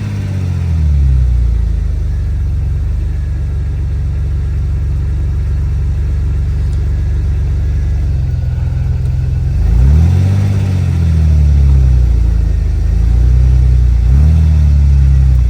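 Jeep engine running with its revs flaring up and dropping back three times, at the start, about ten seconds in and near the end: the automatic transmission is slipping, low on fluid after the Jeep lay on its side.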